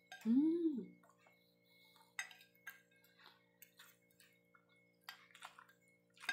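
Eating sounds: a short closed-mouth "mm" that rises and falls in pitch about a second in, then scattered light clicks of a metal fork and spoon against a plate, mixed with mouth sounds of chewing.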